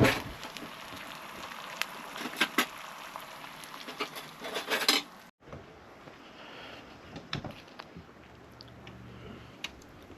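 A run of sharp clinks and knocks, bunched in the first five seconds, then fewer and fainter after a brief break.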